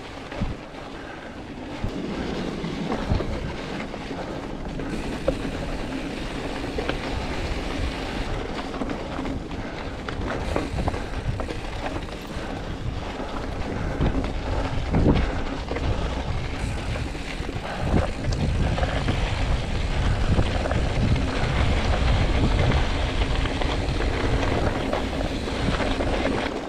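Mountain bike rolling fast over a rocky gravel trail: tyres crunching on stones and the bike rattling with scattered knocks over bumps, under a steady rumble of wind on the camera microphone. It grows louder in the second half.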